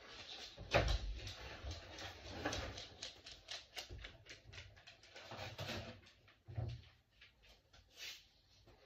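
A dog's claws clicking on a tiled floor as it walks, a run of light, irregular clicks, with a thump and some rustling about a second in.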